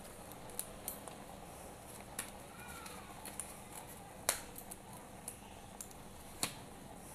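Disposable rubber safety gloves being pulled onto the hands: scattered small snaps and rustles of the stretching glove, two sharper snaps about four seconds in and again about six and a half seconds in.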